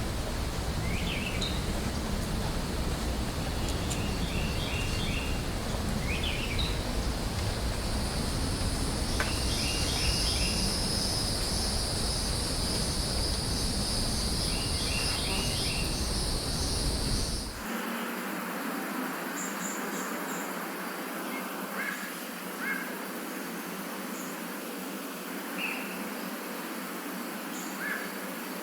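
Tropical forest ambience: a bird repeats a quick phrase of several short high notes every two to three seconds while an insect keeps up a steady high buzz over a low rumble. About two-thirds of the way through, the sound cuts to a quieter background with only scattered short bird chirps.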